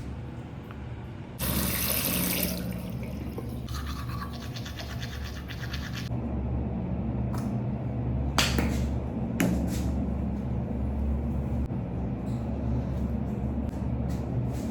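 Teeth being brushed: rapid scrubbing strokes of a toothbrush, with a rush of running tap water starting about a second and a half in and two sharp clicks later on, over a steady low hum.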